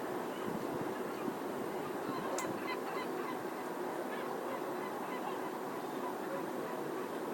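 Steady city ambience heard from an apartment terrace: a low, even hum of distant traffic, with a few short high calls and a brief click about two and a half seconds in.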